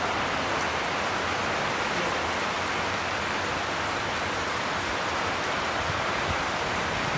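Steady, heavy rain falling.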